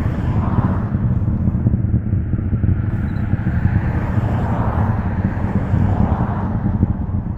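SpaceX Falcon 9 rocket's engines heard from far off as a steady deep rumble, swelling a little a few times.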